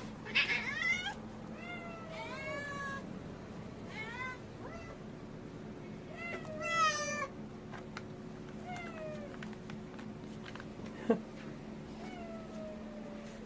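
Street cats meowing again and again at feeding time, hungry for the wet food being put out. There is one sharp click about eleven seconds in.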